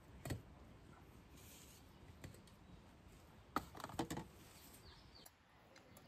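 A few light clicks and metal clinks from handling the lid of a thin aluminium pot, one a moment in and a cluster about three and a half seconds in, with faint birdsong behind.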